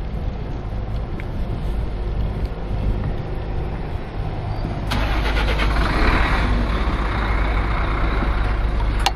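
Diesel engine of a delivery truck running steadily close by. About five seconds in, a loud hiss starts suddenly and lasts two to three seconds.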